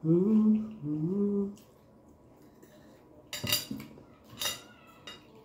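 A two-note closed-mouth hum of enjoyment, "mm-hmm", while chewing. About a second later, metal forks clink twice on glass plates, about a second apart, with a short ring.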